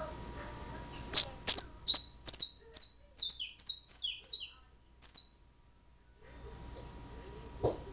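Domestic canary singing a run of about ten loud, high, falling notes, roughly three a second, that stops about five seconds in. A single click follows near the end.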